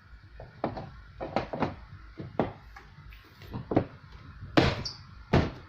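Irregular sharp knocks and clicks from washing-machine parts being handled while the drain pull cord is fitted, the two loudest knocks near the end.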